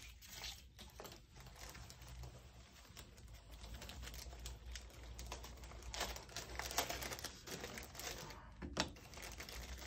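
Small clear plastic bags crinkling and rustling as they are handled and opened, with scattered light clicks, busiest about six to nine seconds in.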